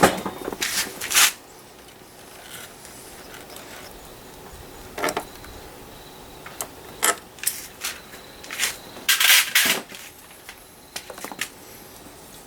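Irregular metallic clinks and knocks of hand tools and small metal parts being handled, loudest at the very start and again about nine seconds in.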